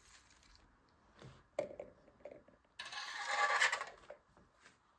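Foil-wrapped chocolate eggs being handled and set down on a table: a few light knocks, then about a second and a half of crinkling foil.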